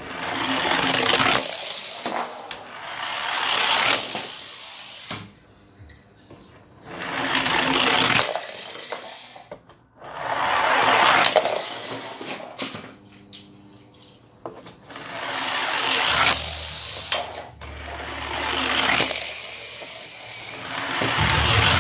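Toy cars rolling and rattling down a giant tube one after another. Each run is a rushing rattle that swells and then stops abruptly, about seven times.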